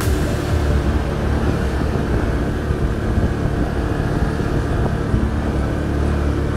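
ATV engine running steadily under way at about 30 km/h.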